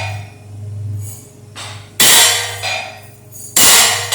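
Hammer striking a steel channel upright to knock it plumb: a lighter tap, then two hard ringing metal blows about a second and a half apart, over a steady low hum.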